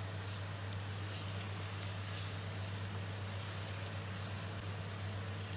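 Marinated chicken pieces sizzling in hot oil in a nonstick wok while being sautéed: a steady frying hiss, with a steady low hum underneath.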